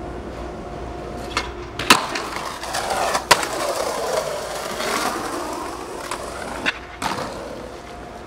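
Skateboard wheels rolling on smooth concrete, with several sharp clacks of the board. The loudest clacks come about two and three seconds in.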